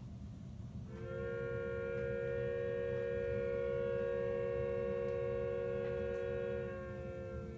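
N scale model train running on the layout track with a low rumble. From about a second in, a held chord of several steady tones rises over it and is the loudest sound, thinning out near the end.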